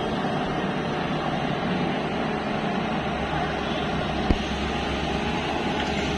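Diesel engine of a Tata Hitachi EX 215 long-reach excavator running steadily, with a single short knock about four seconds in.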